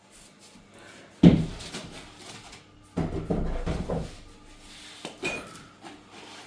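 A sharp loud knock about a second in, then a burst of knocks and rattles, and a smaller knock near the end: an opened shipping case and its packing being handled.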